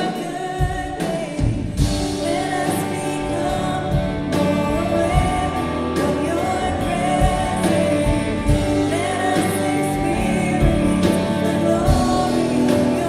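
Live worship band of drums, bass, acoustic and electric guitars and keys playing while singers sing sustained lines, the sound of the room building steadily louder.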